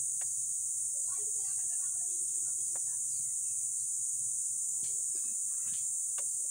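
A steady high-pitched insect chorus, crickets or cicadas, with faint voices and a few sharp clicks.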